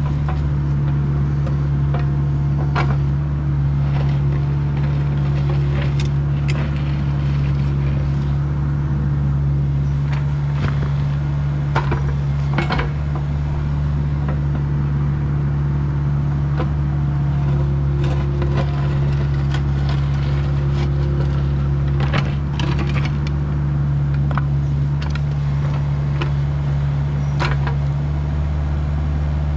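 Bobcat excavation machine's diesel engine running at a steady speed, with scattered short knocks and scrapes.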